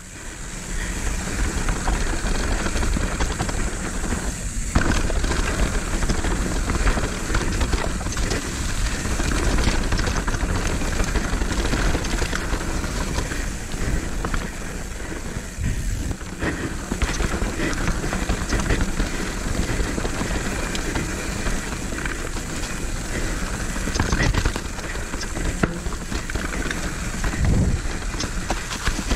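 Mountain bike descending a dirt trail at speed: wind rushing over the microphone, tyres rolling over dirt, and the chain and frame rattling over bumps, with a few heavier knocks near the end.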